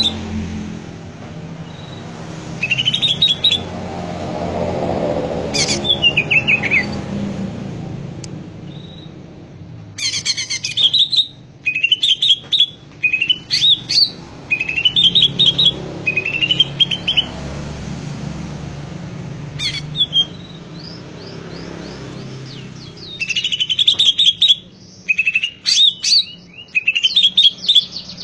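Cucak ijo (greater green leafbird) singing vigorously: repeated short phrases of quick, sweeping whistled notes, coming in clusters with brief pauses between them. A steady low rumble runs underneath and swells a few seconds in.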